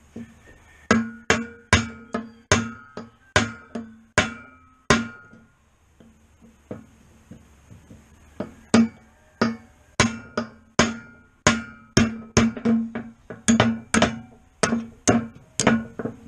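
Hammer blows on a steel punch, knocking a bearing out of a disk harrow's steel bearing block. The blows come about two a second, each ringing briefly, with a pause of about four seconds partway through before the hammering resumes.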